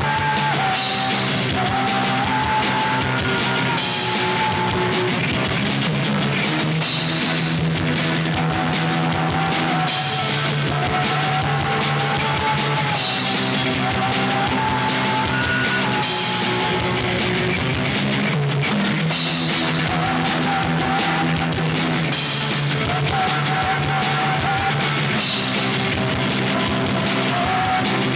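Rock music played by a band with drum kit and electric guitar, with a lead melody carried in repeated phrases over a steady backing.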